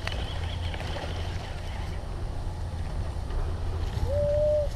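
Wind rumbling on the microphone, with a short held tone near the end.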